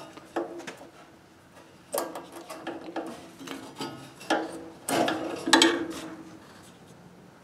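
A hand tool working a steel cotter pin on a snowblower's auger drive shaft, being straightened before it is pulled: irregular metal clicks and scrapes, a few sharp taps with a short ring, the loudest about five to six seconds in.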